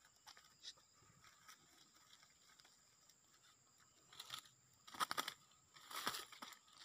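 A faint, near-silent stretch, then short bursts of rustling and crackling about four, five and six seconds in.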